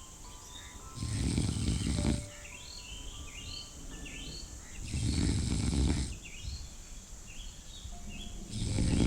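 A person snoring in slow, even breaths, three snores about four seconds apart, with birds chirping faintly between them.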